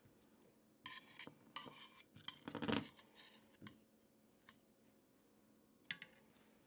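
Soft, scattered clinks and scrapes of a kitchen utensil against an enamelled pot as a seared cabbage wedge is set into the tomato braising liquid. The loudest scrape comes about two and a half seconds in.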